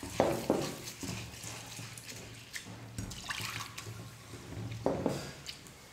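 A hand rinsing thick poha (flattened rice) in water in a stainless steel bowl: swishing and squelching as the wet flakes are stirred and squeezed, with louder splashes just after the start and again about five seconds in.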